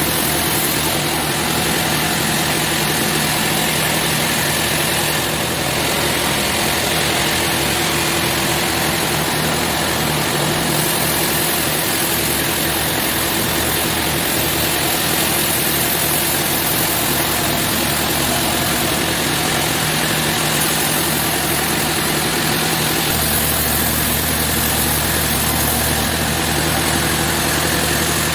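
Sawmill machinery running steadily: a continuous engine-like drone with a loud, even noise and a steady low hum, without a break. The low hum shifts slightly about three-quarters of the way through.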